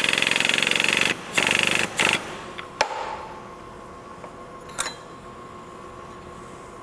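Air-powered hydraulic pump of a Fisher Engineering BT1B bend tester running with a rapid, even pulsing as it bends a 3/16-inch welded test coupon. It stops about a second in, and two short bursts follow. Later come two sharp metallic clicks as the bent coupon is handled.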